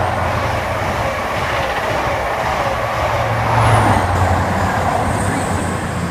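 CrossCountry High Speed Train passing through, with steady wheel and rail noise under the drone of its Class 43 diesel power cars. The drone swells again about three and a half seconds in as the rear power car goes by, with a short high whine falling in pitch.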